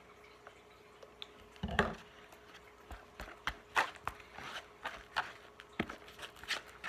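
Slime of glue, shaving cream and contact solution being stirred in a bowl: a single thump a little under two seconds in, then irregular sticky clicks and squelches, two or three a second, as the mixture thickens into slime.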